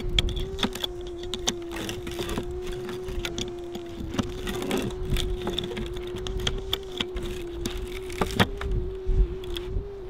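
Pliers clicking and scraping on a slotted metal hive entrance strip, in scattered sharp metal ticks and knocks, with wind rumble on the microphone and a steady hum underneath.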